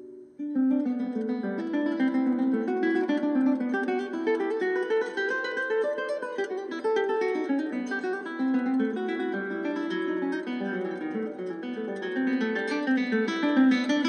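Background music: an acoustic guitar picking a quick, steady run of plucked notes, starting after a short break about half a second in.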